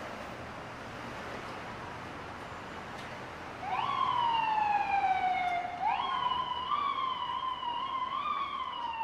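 Steady city street traffic noise, then about four seconds in an emergency vehicle's siren comes in loud over it. The siren's pitch jumps up and slides slowly down twice, then wavers up and down in short steps.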